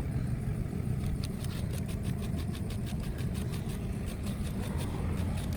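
An engine running steadily at idle, a low rumble with a fast, even ticking of about five a second.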